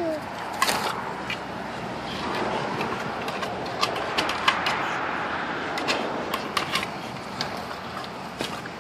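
Steady outdoor background noise with scattered sharp clicks and taps.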